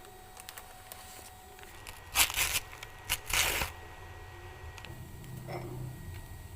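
Two short rustling, tearing-like sounds about a second apart, from objects being handled.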